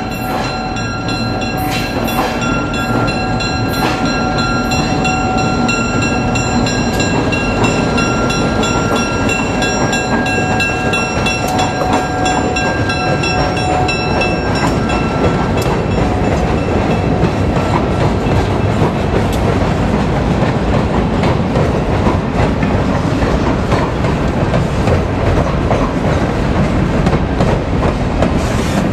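EMD GP7 diesel locomotive and its freight cars rolling across a wooden trestle: a loud, steady rumble with wheels clicking over the rail joints. A steady high ringing tone sounds over it for about the first half, then fades away.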